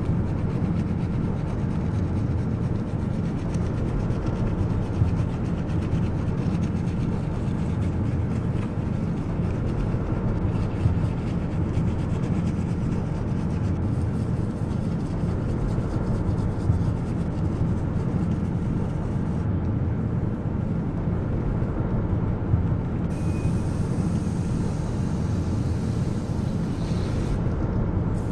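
Detailing brush scrubbing snow foam along a car's window trim and rubber seals: a continuous rubbing sound over a steady low rumble.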